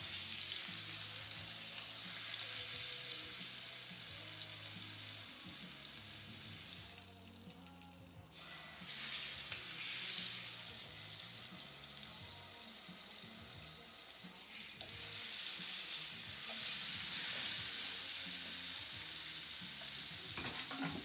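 Beef fillet searing in a hot frying pan in olive oil and butter: a steady sizzle that dies down briefly about a third of the way through and then picks up again.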